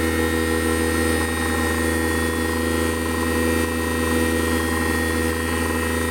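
Portable jobsite air compressor, converted to work as a vacuum pump, running steadily while it pulls a vacuum of about 20 to 23 inches of mercury on a sealed chamber.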